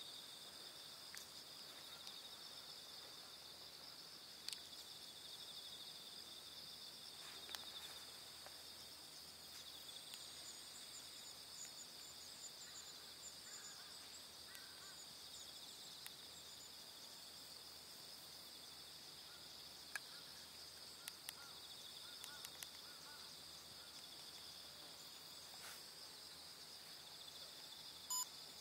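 Faint, steady chorus of insects, a high, finely pulsing trill, with a few scattered soft clicks. A short beep is the loudest sound, near the end.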